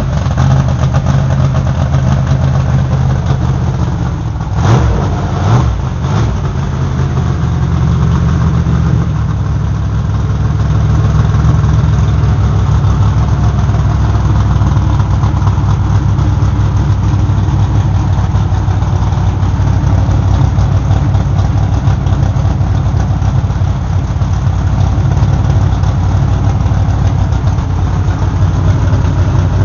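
Alcohol-burning Chevy 350 small-block V8 of a modified dirt stock car idling just after starting, with two short revs about five seconds in, then settling into a steady idle.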